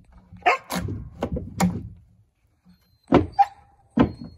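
Long-handled timber chisel driven into a log, chopping and splitting out wood in a notch. A quick run of sharp chops in the first two seconds, then two more single chops about a second apart.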